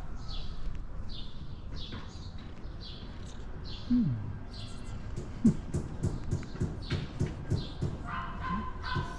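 A long-haired tabby cat making soft whining cries while being stroked, with a low falling cry about four seconds in and a meow starting near the end. Short high chirps repeat about twice a second throughout.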